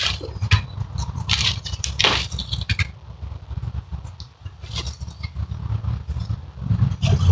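Leaves and twigs of an apple tree rustling in irregular bursts as its branches are pulled down and apples are picked off by hand, over a steady low rumble.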